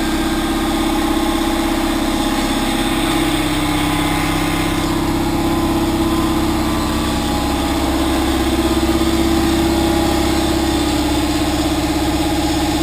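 A machine running steadily: a constant hum with a fast, even pulse.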